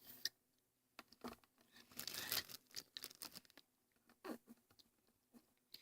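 Faint rustling and crinkling of something being handled, with scattered small clicks.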